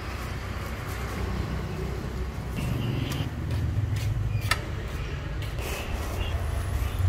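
Steady low rumble of street traffic, with a few short sharp clicks about three and four and a half seconds in.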